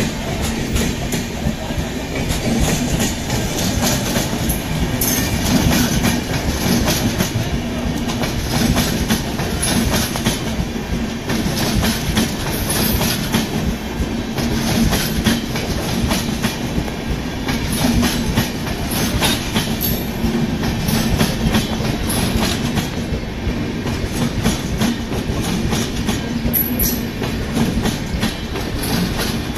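LHB passenger coaches of an Indian Railways express running past at speed: a continuous loud rumble of steel wheels on the rails, with rapid clicking as the wheels cross rail joints.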